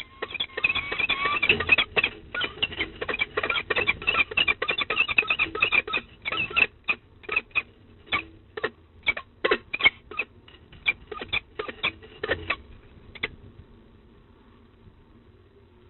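Peregrine falcon calling: a rapid run of short, sharp chipping notes, dense at first, then slowing to about two a second and stopping about two seconds before the end.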